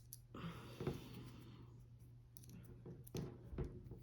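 Faint clicks and rustling of a steel multitool being handled, with a few sharp clicks spread through, over a steady low electrical hum.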